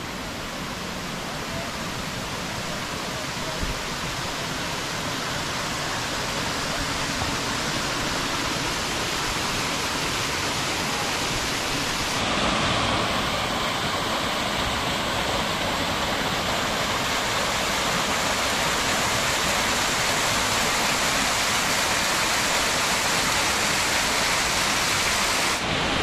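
Waterfall: a steady rush of falling water, growing louder over the first several seconds and a little louder again about halfway through.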